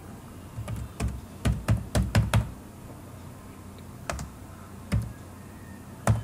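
Typing on a computer keyboard: a quick run of keystrokes in the first two and a half seconds, then a few single keys about a second apart.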